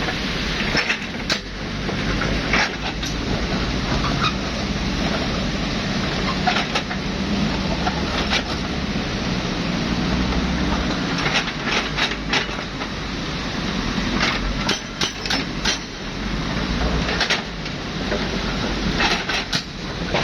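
Heavy earthmoving machine's engine running steadily, with sharp clanks and knocks coming in clusters, most thickly past the middle.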